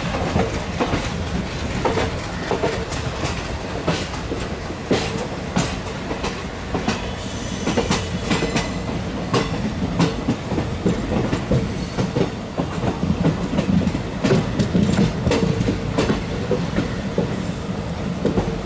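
Passenger train rolling along the track, its wheels clattering irregularly over rail joints above a steady rumble.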